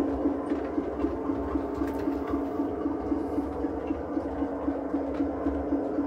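Model Class 25 diesel locomotive's engine sound: a steady hum pulsing evenly about five times a second over a low rumble.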